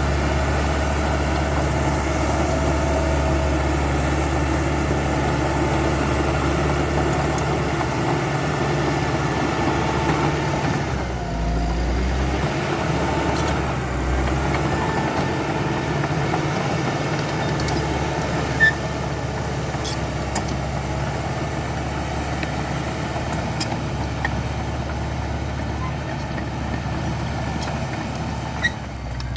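CAT D5K XL bulldozer's diesel engine running steadily while it works, with a few sharp clicks in the second half.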